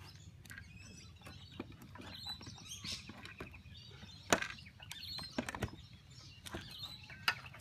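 Scattered clicks and knocks of equipment being handled on a tiled roof, the sharpest about four seconds in and near the end, with birds chirping in the background.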